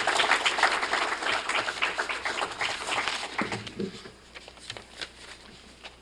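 Audience applauding, the clapping thinning out to a few scattered claps and fading over the last couple of seconds.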